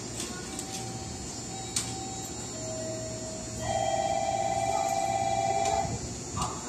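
Electronic station departure bell ringing rapidly and loudly for about two seconds, starting a little past the middle, over a steady low hum from the train standing at the platform.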